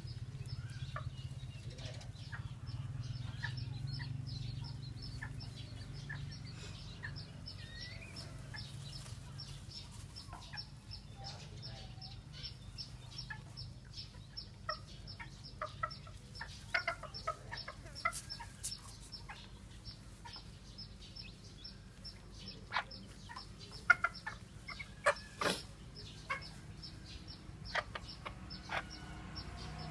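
A broody white bantam hen clucking in short calls while she pecks at food on concrete, with sharp taps from her beak. The calls and taps come thickest in the second half.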